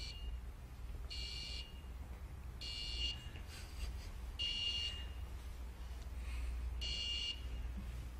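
A small electronic buzzer on an Arduino beeping about five times, each a high-pitched tone of about half a second, at uneven intervals. It goes off when a hand comes near its push-button rather than when the button is pressed, a phenomenon the presenters put down to an induced field.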